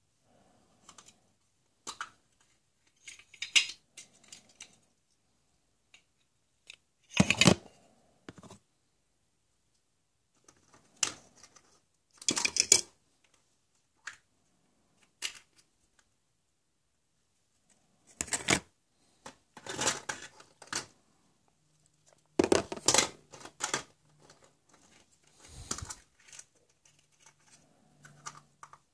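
Plastic surprise eggs and small plastic toys being handled and pulled open: irregular sharp clicks and rattles of hard plastic, in short bursts with quiet gaps between.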